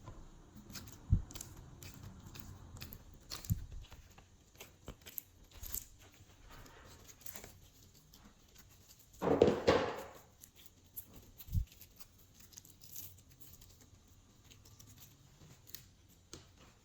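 Glossy slime being handled and mixed by hand: scattered sticky clicks and pops with a few soft low thuds, and a louder crackling rustle about nine seconds in.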